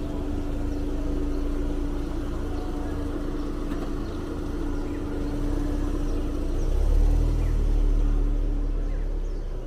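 Car moving slowly in reverse, its engine running at low speed with a steady hum over it. The low rumble swells about seven seconds in as the car is manoeuvred.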